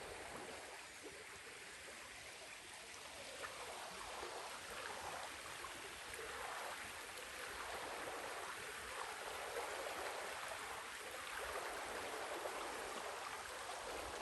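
North Fork Holston River running over its bed: a steady rush of water that swells and eases gently every second or so.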